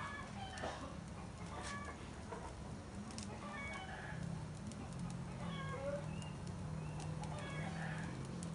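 Chickens clucking in short, scattered calls, over a steady low hum.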